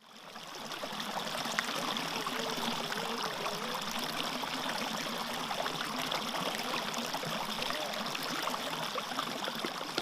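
Steady running water, like a small stream, fading in over the first second.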